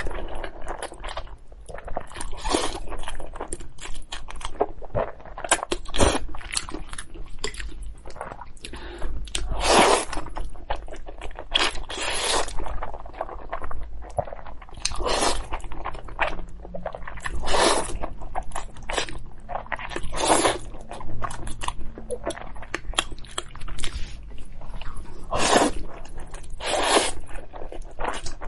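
Close-miked slurping and chewing of noodles: about ten loud sucking slurps, one every two to three seconds, with wet chewing between them.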